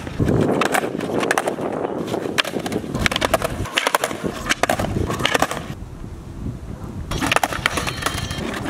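Skateboard rolling on street asphalt, with repeated sharp clacks of the deck and wheels striking the pavement during ollie attempts. Near the end the board shoots out from under the rider.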